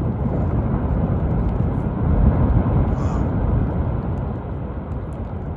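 Low rumble of glacier ice calving into the water. It swells about two seconds in and slowly fades near the end.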